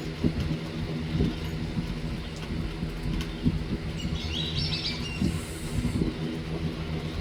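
A bird gives a short run of quick high chirps about four seconds in. Underneath is a steady low hum with low thumps of wind and handling on the microphone.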